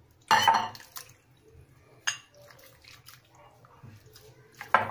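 Raw liver pieces tipped from a glass bowl into wet spice paste with a loud wet slop about a third of a second in, then stirred with a spatula: soft squelching, a shorter burst about two seconds in and a sharp knock near the end.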